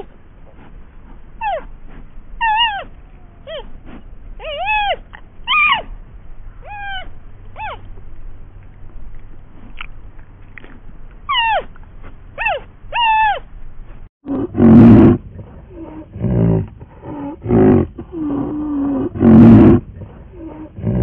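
Wild animal calls: for about the first fourteen seconds, a dozen or so short high-pitched calls, each rising and then falling. Then come five or six loud, deep, rough calls, the loudest about a second apart.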